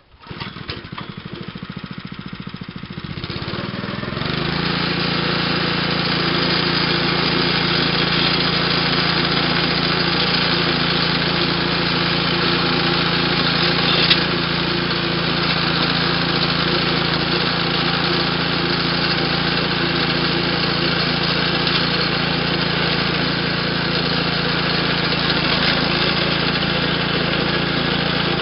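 Small gasoline engine on a walk-behind wire-burying trencher starting up and running at low speed, then throttling up about four seconds in. It then runs steadily under load while the blade cuts a slit through the lawn and throws out dirt.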